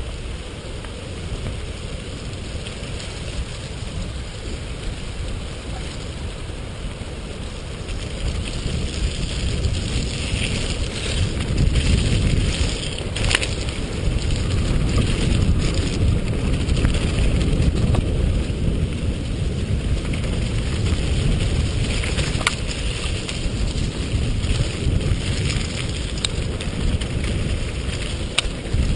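Mountain bike rolling fast down a gravel and dirt trail, its tyres and frame rattling under a steady rush of wind on the microphone. It gets louder about a third of the way in as the ride speeds up, with a couple of sharp clicks from knocks on the trail.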